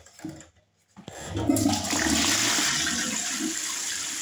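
A ceramic toilet flushing: a short click about a second in, then loud, steady rushing water swirling round the bowl.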